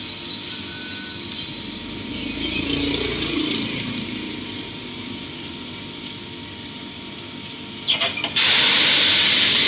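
Drum coffee roaster running while a just-finished roast of beans pours from the drum into the cooling tray and the tray's stirring arm turns them. About eight seconds in, a few clicks come and then a loud, steady hiss starts.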